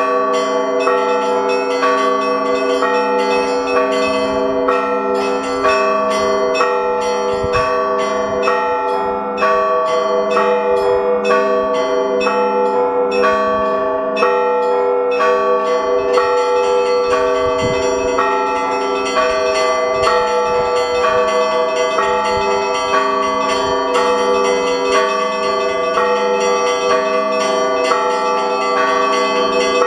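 Russian Orthodox monastery bells rung in a continuous peal (zvon). Small bells are struck in a quick, repeating pattern over the steady hum of larger bells.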